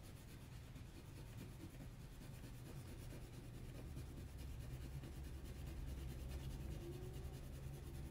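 Faint, steady scratching of a crayon rubbed back and forth on paper while shading in an area, over a low background hum.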